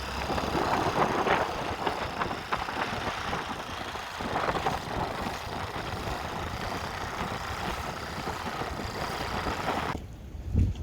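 Dinghy outboard motor running under way through chop, with the hull knocking against the waves and wind on the microphone. The noise drops away suddenly near the end.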